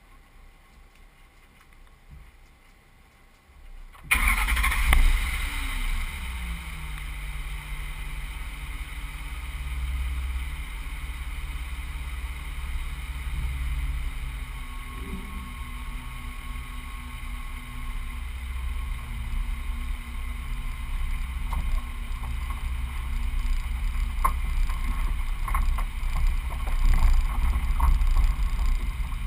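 Truck engine starting about four seconds in: it flares up, then its pitch falls away over a couple of seconds to a steady idle. Near the end it runs a little louder as the truck begins to move off.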